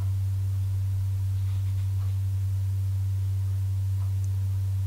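A steady low hum on one pitch.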